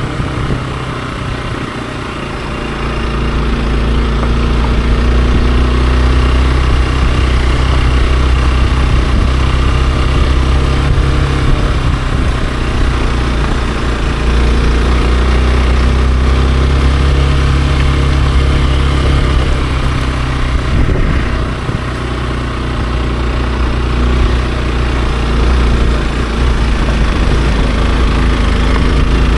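Hero XPulse 200 4V's single-cylinder engine running steadily as the motorcycle is ridden. The engine eases off briefly about two seconds in and again about two-thirds of the way through.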